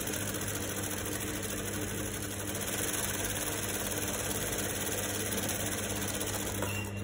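Juki industrial sewing machine running steadily as it sews a straight seam through cotton fabric, under a low steady motor hum; the stitching stops shortly before the end.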